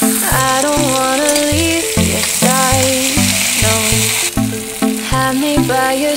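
Okra frying in oil in a pan, with a steady sizzle. Background music with a melody over a stepping bass line plays over it.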